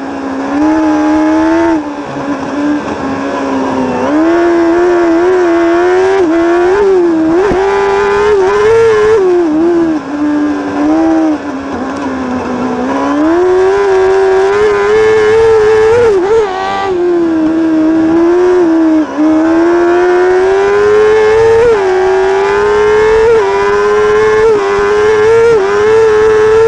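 Crosskart engine at racing revs, heard right beside its exhaust silencer. The engine note climbs and falls over and over as the kart accelerates and lifts off, with short dips about two seconds in, around the middle, and again later on.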